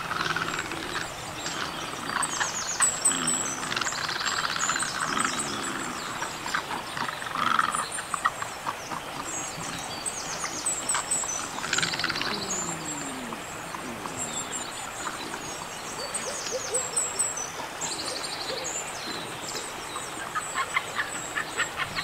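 Mixed chorus of wild birds calling: many short high chirps and trills throughout, with a few lower calls that slide down in pitch now and then.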